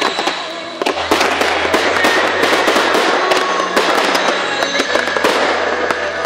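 Fireworks going off in a dense, continuous run of crackles and bangs, thickening about a second in.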